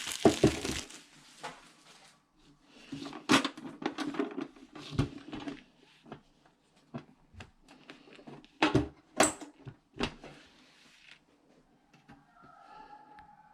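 Handling of a thread repair kit's case and parts: irregular clicks and knocks with short rustles between them, the sharpest knocks a little under halfway and about two-thirds of the way in.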